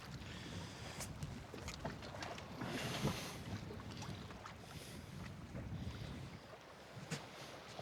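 Water lapping and sloshing against a small boat's hull in a swell, with a louder surge about three seconds in and scattered light knocks.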